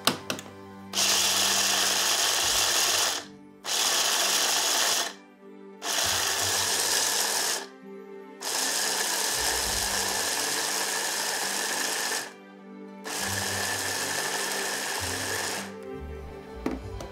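Electric hand blender with a chopper bowl attachment grinding whole almonds into coarse meal, run in five bursts of one to four seconds with short pauses between.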